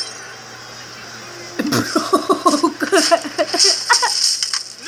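A person laughing in a quick run of short 'ha' syllables lasting about two seconds, starting after a quiet moment.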